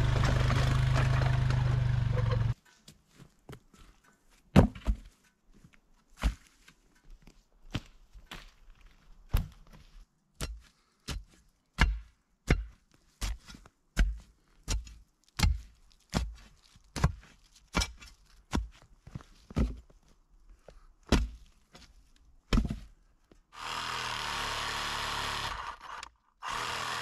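An ATV engine runs for about the first two and a half seconds, then stops. A long steel digging bar then strikes the ground inside the form in a steady series of thuds, roughly one every half to three-quarters of a second. Near the end a handheld cordless power tool runs for about two seconds, then briefly again.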